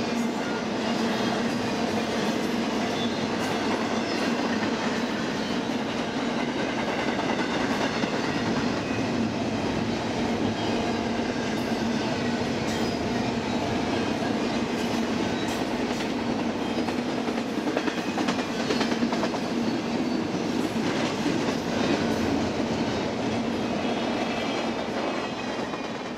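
BNSF intermodal stack train's cars rolling past at a steady pace, a continuous rumble of wheels on rail with irregular clicks as wheels cross rail joints.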